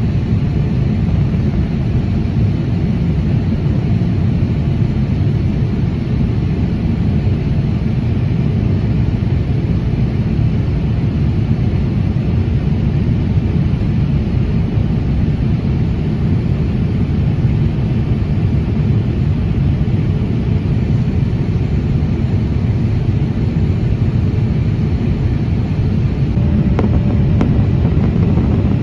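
Steady cabin noise of a Boeing 787-8 airliner in descent: a low, even rumble of airflow and engines with a thin hiss above it.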